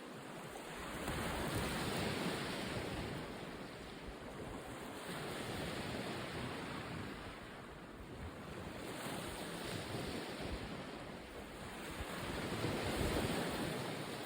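Sea waves washing in, swelling and fading about four times, with wind buffeting the microphone.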